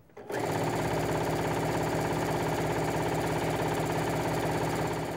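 Electric sewing machine stitching steadily at a fast, even rhythm as it sews along a folded fabric strip. It starts just after the beginning and stops near the end.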